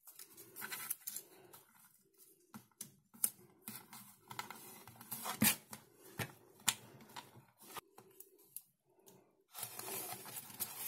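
Black electrical tape being pulled off the roll, torn and pressed down by hand: irregular crackling with a few sharp snaps, then a denser rubbing rustle near the end as the tape is smoothed down.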